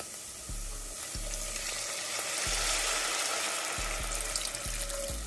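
White wine poured from a bottle into a hot stainless steel pot of onion and garlic frying in butter: a steady pouring splash with sizzling as the wine hits the hot fat, growing louder after about a second.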